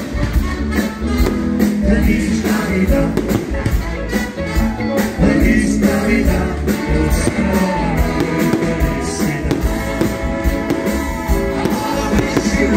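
Loud band music with a singer, a steady beat underneath and a voice holding and bending notes above.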